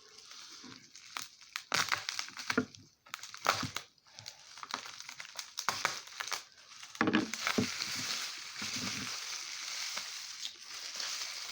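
Packing paper crumpling and rustling as it is pulled off a wrapped glass piece, in irregular crackles that grow busier and more continuous in the second half.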